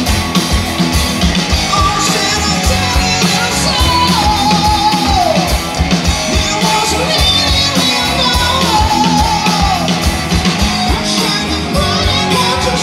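Live rock band playing, with a male singer over acoustic guitar and a steady drum beat; the vocal line slides down at the end of phrases a few times.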